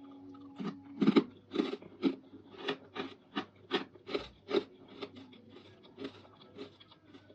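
Close-up chewing of crunchy dried fruit and vegetables: a quick series of sharp crunches, two or three a second, loudest in the first half and trailing off into softer chewing.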